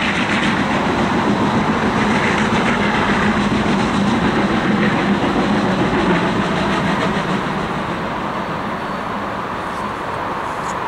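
Passenger coaches of a steam-hauled special train rolling past on the rails, a steady rumble of wheels and running gear that slowly fades in the second half.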